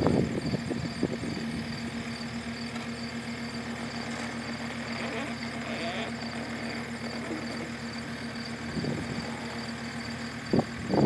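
Skid-steer loader's engine running at a steady speed while its forks are raised, with a few knocks near the start and one sharp knock near the end.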